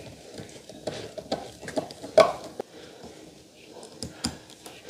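Flat-pack desk assembly by hand: a hand tool and particleboard panels give a run of small clicks, knocks and scrapes, the loudest knock about two seconds in.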